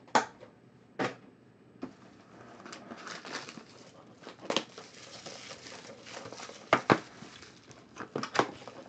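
A cardboard trading-card box handled on a tabletop: several sharp knocks as it is set down and moved, with rustling and sliding in between.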